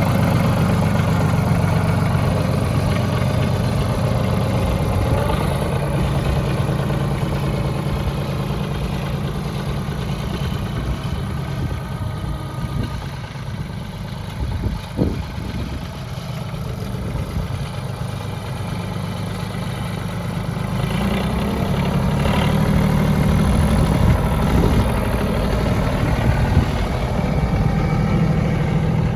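An engine running steadily at a low pitch, easing off a little about midway and picking up again later.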